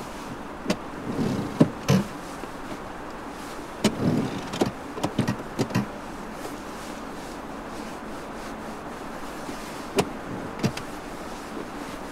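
Clicks and light knocks from a Lada Granta's interior fittings and controls being handled: a cluster of short clicks in the first six seconds and two more near the end, over a steady hiss.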